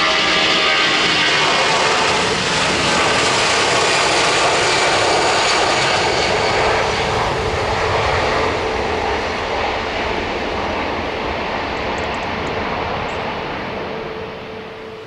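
Jet airliner's engines at takeoff power during the takeoff roll and climb-out: a loud, steady jet noise with a few held whining tones, fading away over the last few seconds.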